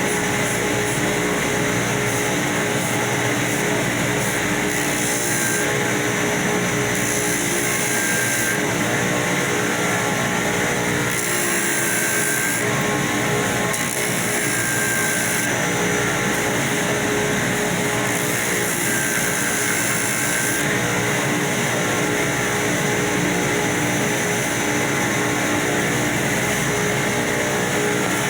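Electric sander running steadily under load, a constant motor hum with a high, scratchy hiss that grows and fades every few seconds as the abrasive works the surface.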